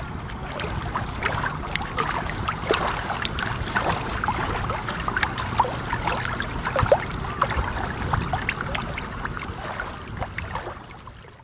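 Water splashing and lapping around a boat, full of small sharp splashes, with a steady low rumble underneath.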